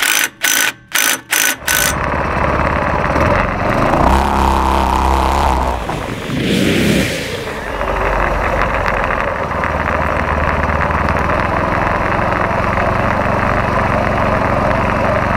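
A cordless impact driver hammers in about five short bursts, tightening a torque converter pulley. Then the go-kart's four Predator 212 single-cylinder engines run hard under throttle, with a brief rush of noise about seven seconds in as the kart ploughs through a leaf pile.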